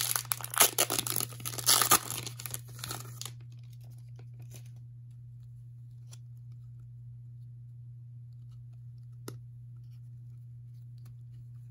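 Plastic wrapper of a trading card pack being torn open and crinkled for about three seconds, then only a steady low hum with a few faint clicks as the cards are handled.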